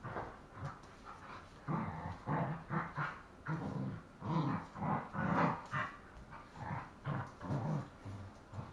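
Two dogs play-fighting, growling in a string of short bursts as they wrestle.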